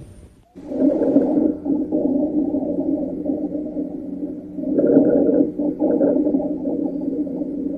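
Recorded lung sounds with continuous low-pitched musical tones through the breathing, the kind of adventitious sound heard as wheeze or rhonchi on chest auscultation. It starts after a brief gap and swells and fades with the breaths, loudest about a second in and again about five seconds in.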